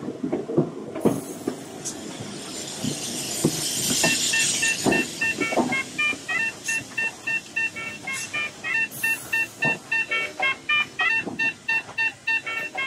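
A music soundtrack: a rising whooshing swell with scattered clicks, then from about four seconds in a quick, even run of short, high staccato notes at several pitches.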